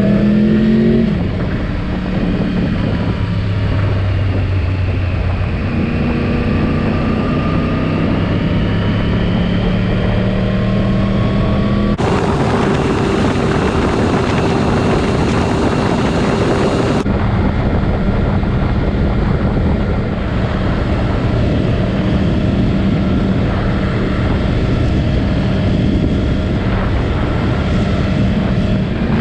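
Yamaha R1 motorcycle's inline-four engine running under way, its pitch slowly rising and falling with the throttle. About halfway through, a few seconds of louder rushing hiss come over it.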